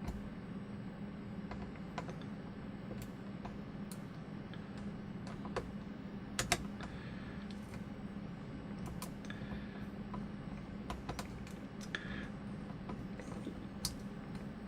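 Irregular small metallic clicks and ticks of a hook pick working through the warding and against the pin stack of a five-pin circular discus padlock, the loudest about six and a half seconds in, over a steady low hum.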